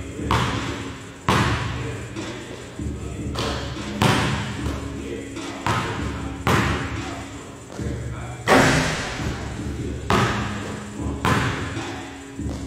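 Basketballs bouncing on a hardwood gym floor, a hard thud about once a second, each ringing on in the echo of the large gym.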